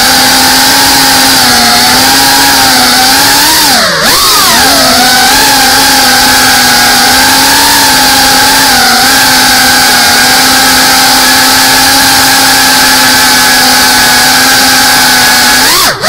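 GEPRC Cinelog 35 FPV cinewhoop's brushless motors and ducted propellers whining loudly, picked up by the onboard camera's microphone. The pitch holds mostly steady, drops and climbs back quickly about four seconds in, and swings up and down again at the very end.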